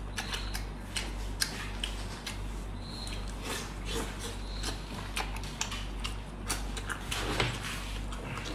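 Eating sounds: scattered small clicks and knocks of tableware and chewing over a steady low hum.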